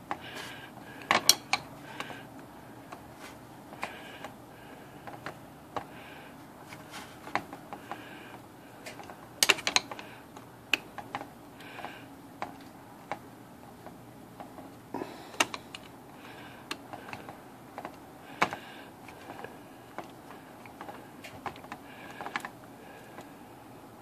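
Screwdriver starting a mounting screw into the carrier stepping motor of an IBM Wheelwriter 3 typewriter: irregular small metal clicks and short scrapes, a few a second, with louder clicks about a second in, near ten seconds and around fifteen to eighteen seconds.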